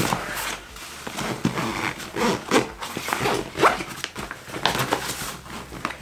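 Zipper of a fully packed Bellroy Apex nylon backpack being pulled shut in several short pulls, with the fabric rustling as the bag is handled.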